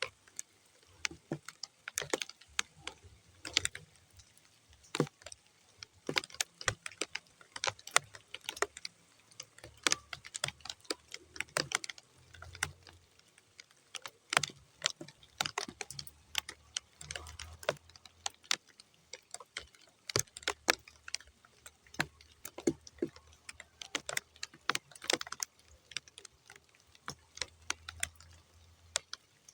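Rain falling on muddy ground: sparse, irregular drops landing as separate sharp ticks and taps rather than a steady downpour.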